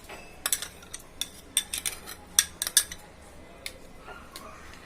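Kitchen utensils clinking and scraping against a cooking pot, a quick run of sharp clicks lasting about three seconds, as washed rice is added to the simmering dal.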